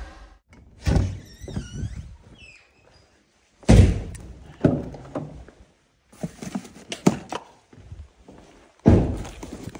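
A string of separate thunks and knocks, the loudest about four seconds in, from a cardboard box being carried and handled, with a short high squeak a little after the first knock.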